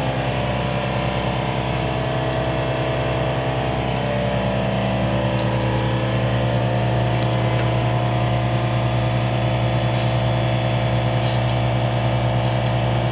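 A motor running steadily with a strong low hum and a slight dip in pitch about five seconds in.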